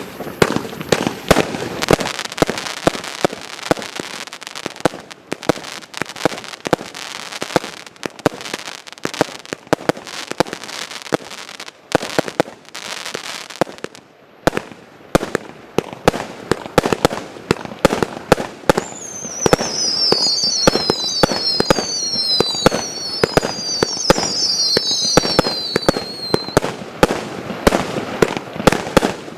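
Klasek fireworks going off in quick succession: dense sharp bangs and crackling throughout. From about two-thirds of the way in, a run of overlapping whistles falls in pitch for several seconds.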